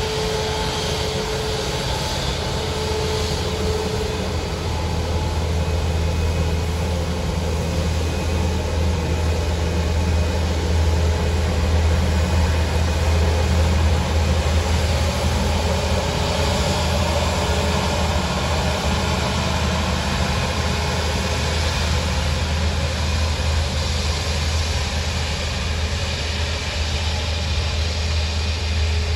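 Airbus A350-941's Rolls-Royce Trent XWB jet engines running at ground idle, a steady low rumble with a faint whine over it.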